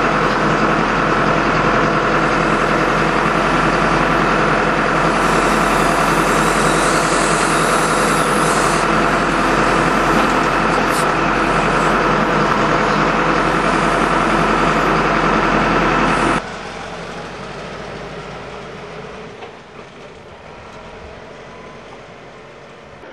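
Valmet 6400 tractor's four-cylinder diesel engine running steadily, heard loud inside the cab while the crane is worked, with a hiss added for a few seconds partway through. About sixteen seconds in it cuts abruptly to the much quieter, distant sound of the tractor driving along a road.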